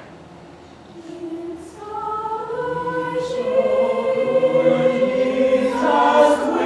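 Mixed choir of male and female voices singing. After a quiet first second and a brief phrase, the choir holds long chords that swell and grow louder, then breaks off at the very end.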